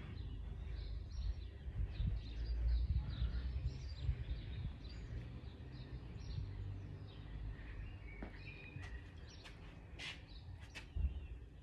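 Small birds chirping over a low rumble on the microphone, with a few brief clicks near the end.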